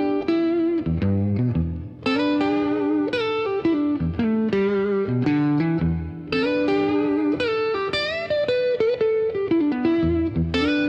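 Background music: a plucked-string melody, guitar-like, with sliding pitch bends over low bass notes.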